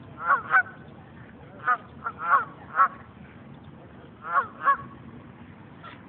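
Geese honking: about eight short calls, some in quick pairs, at irregular intervals.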